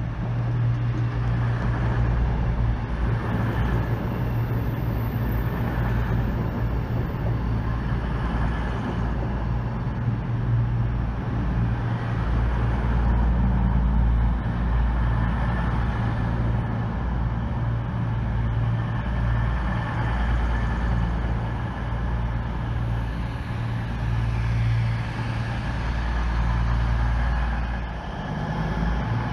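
CrossCountry Voyager diesel multiple unit running into the platform and past close by, its underfloor Cummins diesel engines making a steady low drone.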